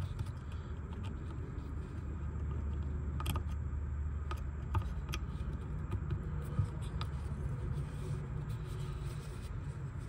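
A few faint clicks and light scraping from a screwdriver and fingers working the small metal and plastic parts of a disassembled power seat switch, spread out over several seconds, over a steady low background rumble.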